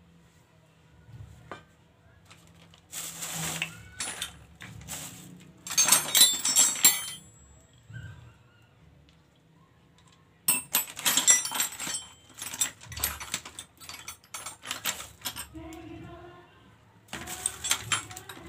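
Hand tools working on a motorcycle's rear wheel hub and sprocket: runs of rapid metallic clicking and clinking, broken by short pauses.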